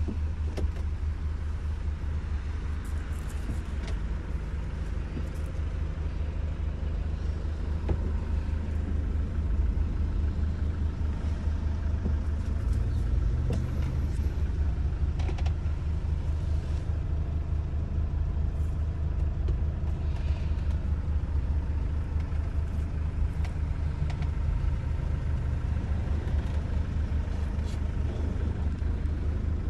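Citroën Jumper minibus engine idling: a steady low rumble that holds at an even level, with scattered small clicks and knocks.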